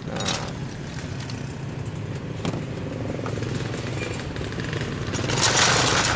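Metal scoop digging into ice cubes in a plastic cooler and tipping them into a plastic cup, with a few clinks early on and a louder rattle and scrape of ice near the end. Underneath, a motorcycle engine runs steadily.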